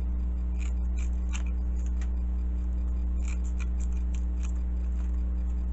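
Small floral shears snipping through Velcro hook tape: a string of short, faint snips at irregular intervals. A steady low hum runs underneath and is louder than the snips.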